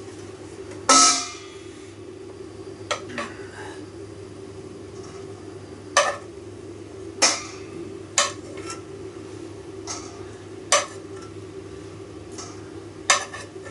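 Spoon and cookware knocking and clinking against each other in separate sharp strikes, about seven in all; the loudest, about a second in, is a ringing metallic clang. A steady low hum sits underneath.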